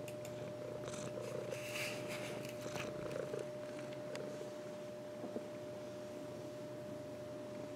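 Maine coon cat purring steadily, close up. Fur rustles against the microphone in short bursts during the first few seconds.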